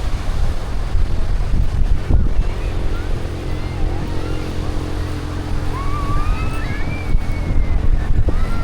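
Outdoor ambience dominated by wind rumbling on the microphone, with a steady engine hum coming in about two and a half seconds in and a few short high chirps in the second half.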